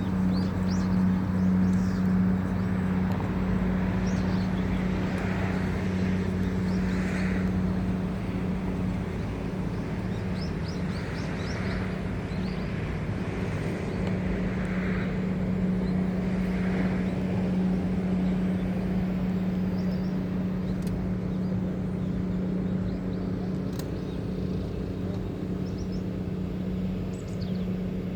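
A steady low motor hum with no change in pitch, with faint short chirps and rustles coming and going above it.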